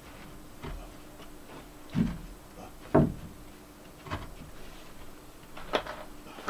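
Loose wooden boards knocking and scraping against each other and the plank floor as they are shifted into place on a board-and-batten cabinet door. There are a few separate wooden knocks, the two loudest about two and three seconds in.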